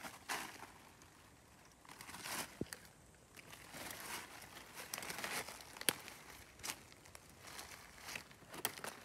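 Dry fallen leaves rustling and crackling as the leaf litter is disturbed, in uneven bursts with a few sharp clicks.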